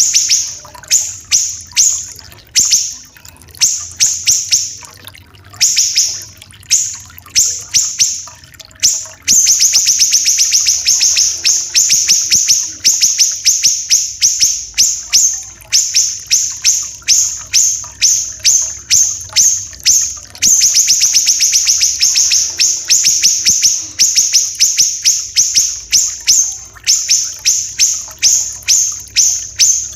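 A siri-siri kecil songbird singing harsh, dense, rapid-fire series of high sharp notes in repeated bursts, with longer unbroken runs about a third of the way in and again past two-thirds. A faint trickling-water effect sits underneath.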